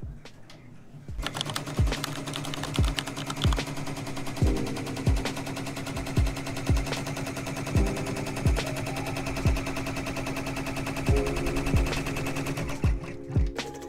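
Embroidery machine starting up about a second in and stitching a placement run stitch for an appliqué, its needle making a rapid, steady rattle. Background music with a steady beat plays underneath.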